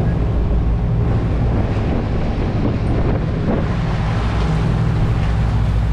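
Outboard motors running steadily as the boat moves at speed, with wind buffeting the microphone and the rush of water from the wake.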